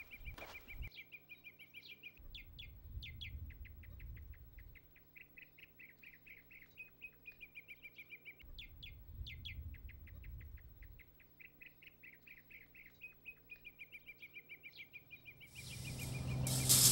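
A small bird singing: rapid runs of short high chirps and trills, repeated with brief pauses, over a faint low rumble of wind. Near the end a loud rush of noise comes in.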